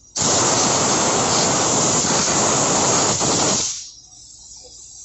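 A blast of compressed air hissing hard for about three and a half seconds, blowing dirt out of the union nut's threads, then tailing off.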